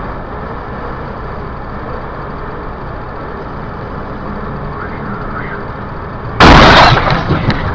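Steady road and engine noise inside a vehicle, then about six and a half seconds in a sudden, very loud crash lasting about half a second as it collides with a car sliding across its path, followed by uneven clatter.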